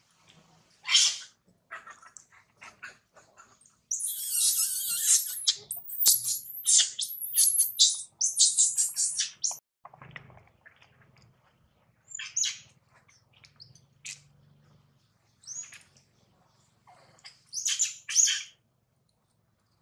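Baby long-tailed macaque screaming in repeated high-pitched squeals: a long scream about four seconds in, then a quick string of shorter ones, then scattered squeals toward the end.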